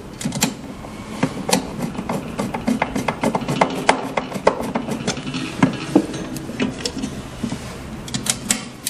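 A hand screwdriver driving a screw back into the metal lid of a 3D sublimation vacuum heat press: a quick, irregular run of small clicks and ticks over a low steady hum.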